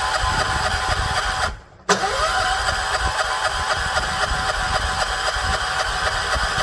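John Deere 212 lawn tractor engine being cranked by its electric starter in two tries: the first stops about a second and a half in, and the second starts with a rising whine half a second later and keeps cranking. The engine turns over but does not catch. It is cold-soaked from sitting in the snow, and the owner thinks it has spark but needs fuel pumped up to the carburettor.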